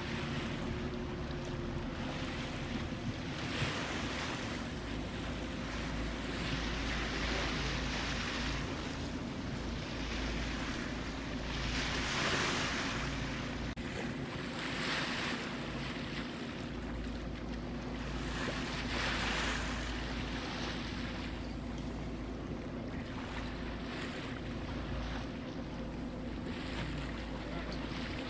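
Choppy sea washing against the boat and wind buffeting the microphone, the water noise swelling every few seconds, over a steady low hum from the boat's engine.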